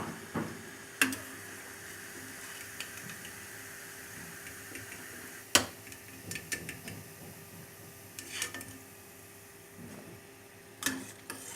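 Kitchen utensils clinking and knocking against dishes and a pan a few times, the loudest knock about halfway through, over a faint steady hum.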